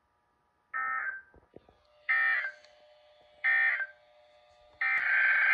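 Emergency Alert System SAME data bursts from NOAA Weather Radio: three short, buzzy digital bursts about a second and a half apart, the end-of-message code closing a warning, then a longer burst near the end that begins the next alert's header.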